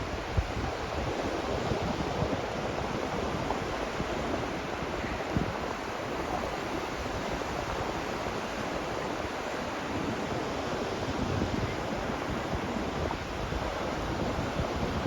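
Sea waves washing onto a sandy beach: a steady rushing surf, with some wind rumbling on the microphone.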